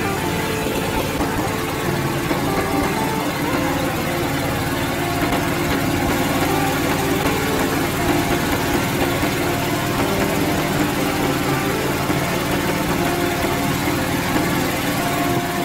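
A small engine running steadily under load, its pitch shifting slightly, over a loud, even rushing noise.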